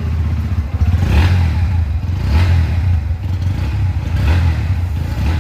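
Bajaj Pulsar NS125's single-cylinder engine running through its stock exhaust, with a steady low rumble and the throttle blipped in short revs about three times.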